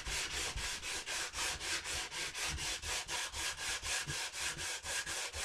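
Sandpaper on a hand sanding block scrubbing back and forth over the wooden buttstock of a Winchester 1906 .22 pump rifle, a quick, even rhythm of hissing strokes, as the wood is sanded down to fit. The sheet has just been turned to a fresh face after the old one clogged and stopped cutting.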